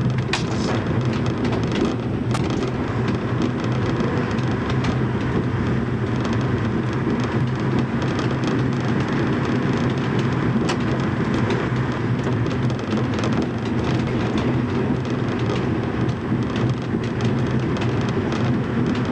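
Diesel railbus running along a branch line, heard from the driver's cab: a steady low engine drone under a constant rumble of wheels on the rails, with a few sharp clicks.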